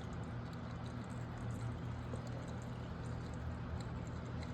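Old engine oil draining out of a dirt bike's open oil strainer port into a drain bucket, a steady pouring trickle, with a low steady hum under it.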